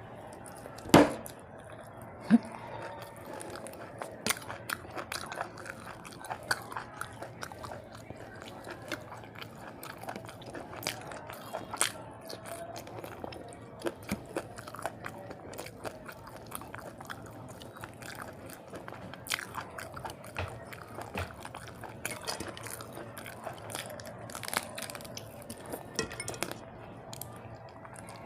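A person chewing and crunching food close to the microphone, with many small irregular wet clicks and crackles; two sharper, louder clicks come about one and two seconds in.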